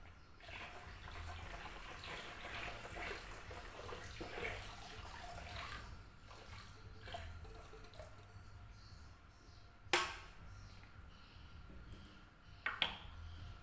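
Faint water sounds for about five seconds, then quieter handling noises, with a sharp click about ten seconds in and two more near the end.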